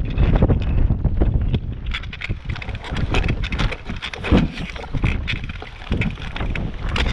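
Mountain bike rolling over a rough grassy track, its frame and components rattling with frequent clicks and knocks, under a steady low rumble of wind buffeting the GoPro's microphone.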